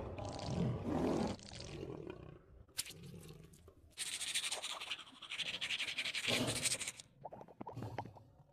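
A low animal growl sound effect in the first second or so. Then, from about four seconds in to about seven, a dense scraping sound as a tongue scraper is drawn across the lion's tongue, with a few clicks after it.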